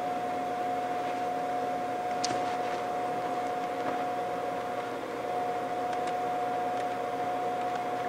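A motor-driven blower running steadily, a constant mid-pitched whine over an even whoosh, with a couple of faint light ticks.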